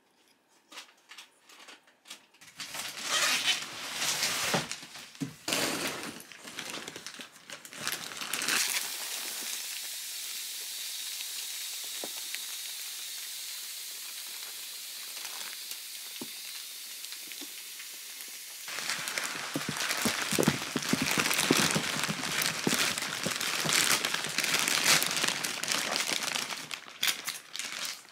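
Clear plastic wrapping of a vacuum-packed mattress crinkling and rustling as it is pulled open. In the middle, a steady hiss lasts about ten seconds while the compressed mattress puffs up on its own.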